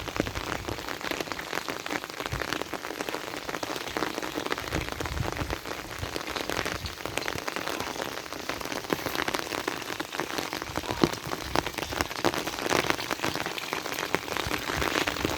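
Heavy rain falling steadily, a dense patter of countless drops hitting a hard surface.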